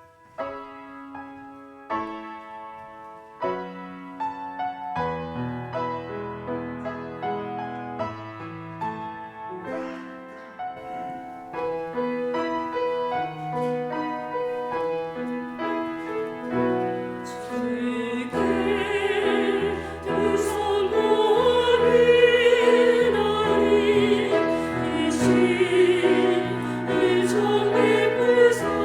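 Solo piano introduction of separate struck notes and chords, then a women's vocal ensemble comes in singing with vibrato over the piano about two-thirds of the way through, and the music grows louder.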